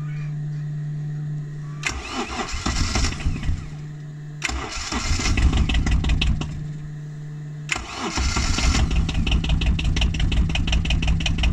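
Cold start of an Arctic Cat diesel ATV engine. A steady hum comes first and returns between attempts. The starter cranks twice for a few seconds each without the engine staying running, and on the third try, about eight seconds in, the engine catches and settles into an even diesel idle.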